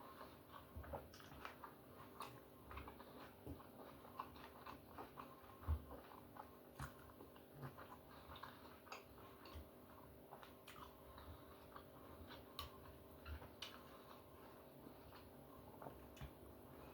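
Faint chewing and eating sounds from a person eating steak: scattered soft mouth clicks and smacks at irregular intervals.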